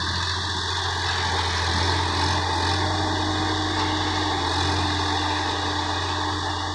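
Sonalika DI 50 RX tractor's diesel engine running steadily under load while it pulls a rotary tiller through dry field soil.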